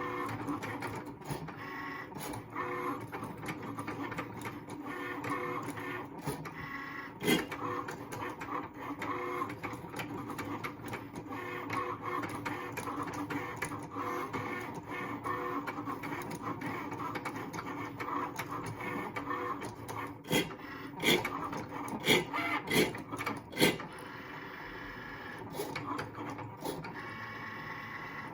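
Cricut Maker cutting machine running a cut: its carriage and roller motors whirr steadily, with a cluster of sharp knocks about three quarters of the way through. The owner reports a grinding noise from first use whenever the blade carriage nears the middle.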